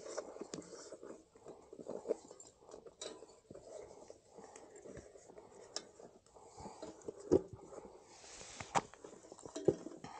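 Light handling noises: scattered rustles and clicks, with two sharper knocks about seven and nine and a half seconds in and a brief hiss just before the second.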